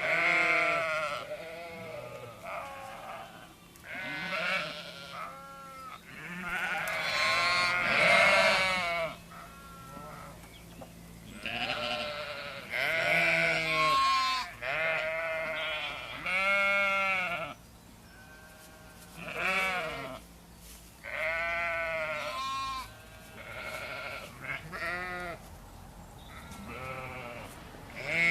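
Several sheep bleating repeatedly, calls overlapping at different pitches and loudness, each call wavering and lasting around a second.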